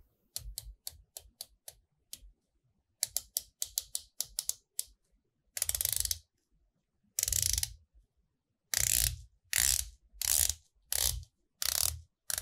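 Titanium dive-watch bezel of a Phoibos Apollo PY031D being rotated, ratcheting titanium on titanium. Separate clicks at first, then from about halfway quicker runs of rapid clicks as it is turned faster. Clicky, but not so defined and precise.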